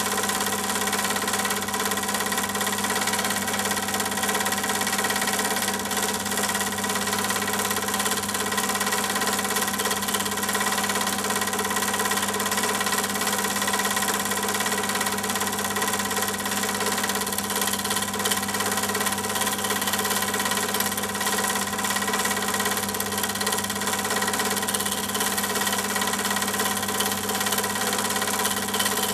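A steady motor-like hum over a hiss, holding one constant pitch throughout without any change or break.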